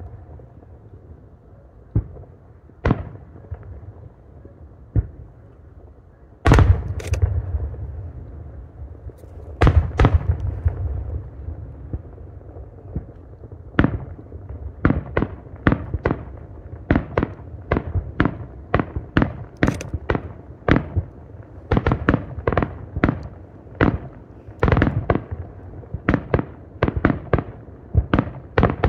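Aerial fireworks shells bursting: a few scattered bangs, a heavy boom about six seconds in with a low rumble hanging on after it, then from about halfway a rapid run of bangs, roughly two a second.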